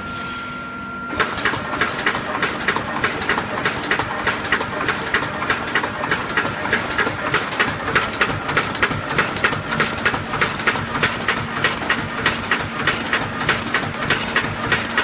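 Automatic wire mesh welding machine for chicken cages running, clacking in an even rhythm of about four strokes a second as it welds. The strokes start about a second in, over a steady machine hum and a steady whine.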